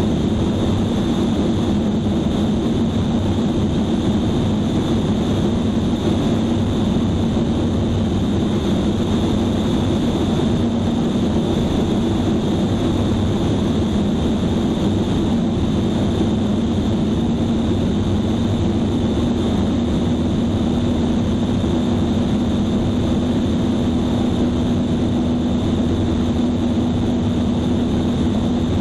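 Light airplane's engine and propeller droning steadily at a constant pitch in cruise, mixed with wind noise.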